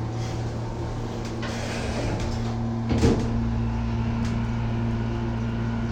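Otis elevator in operation: a steady low hum with a few faint clicks, and a short knock about three seconds in.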